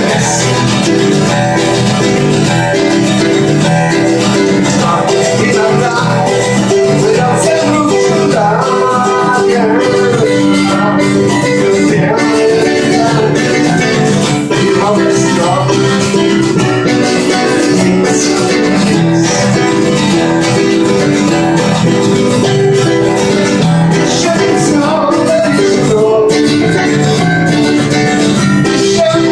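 Music: a guitar-led song with plucked acoustic guitar playing throughout.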